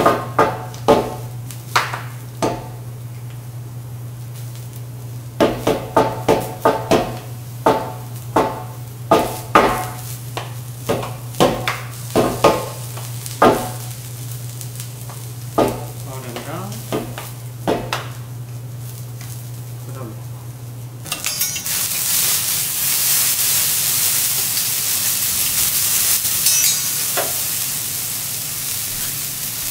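Teppanyaki shakers being flipped and knocked against each other and tapped in a juggling routine: irregular sharp clacks, a few with a short ringing, over a steady low hum. About two-thirds of the way in this gives way abruptly to bean sprouts sizzling on a hot steel griddle as they are stirred with a spatula.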